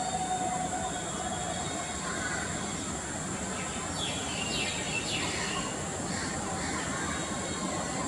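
Steady outdoor background noise with a constant high hiss, and a few short, falling chirps of a small bird about four seconds in.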